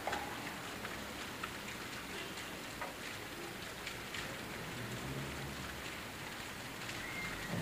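Steady outdoor background hiss with scattered faint ticks and clicks; a low hum joins about five seconds in.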